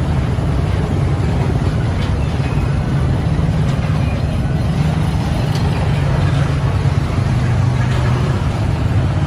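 A heavy engine running steadily, a constant low rumble that neither rises nor falls, with a general haze of noise over it.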